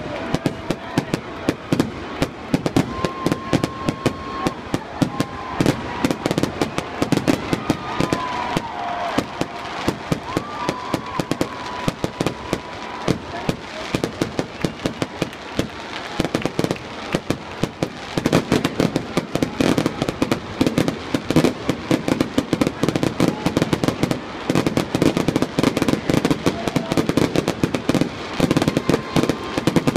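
Fireworks finale: a dense, continuous barrage of bangs and crackles, with many shells bursting each second.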